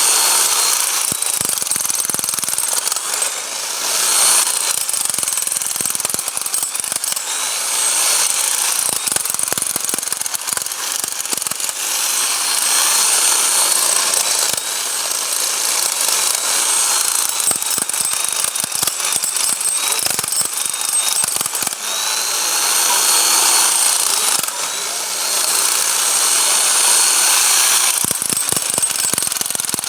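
Bosch hammer drill running in hammer mode: a rapid, continuous rattle of blows over a high motor whine that rises and dips in pitch every few seconds.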